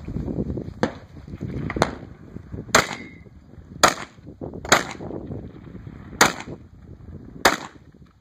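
Pistol firing seven shots at roughly one-second intervals, with a longer pause before the last two; the first two shots are fainter than the rest.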